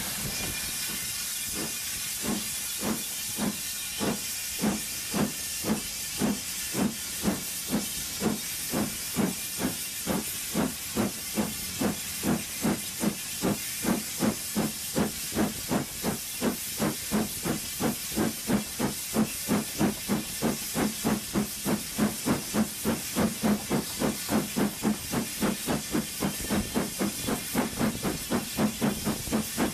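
Stanier Black 5 4-6-0 steam locomotive No. 45428 working hard, heard close up from the first carriage. Its exhaust beats in sharp, even chuffs that quicken from under two to about three a second as the train gathers speed, over a steady hiss of steam.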